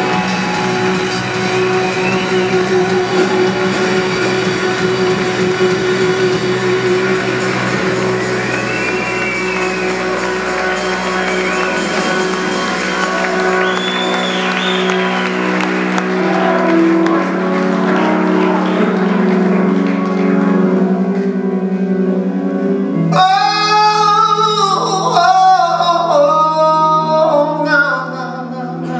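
Live rock band in a theatre hall playing long held chords on electric guitar and keyboards. The deep bottom end drops out about halfway through, and near the end a male voice sings long, bending notes over a sustained low note.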